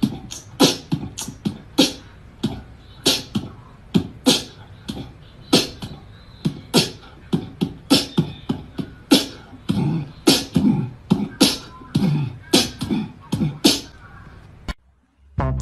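Mouth percussion in the style of beatboxing: a long run of sharp clicks and pops, about two or three a second, with short low voiced sounds between them. It stops suddenly near the end.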